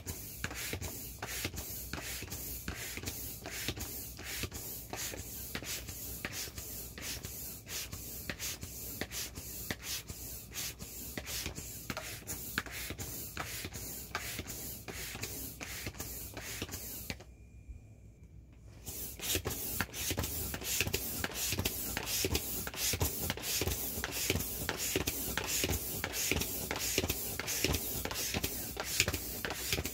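Air pump pushing air into an inflatable vinyl ATV in a regular rhythm of whooshing strokes, about two to three a second. It pauses for a moment a little past halfway, then resumes louder.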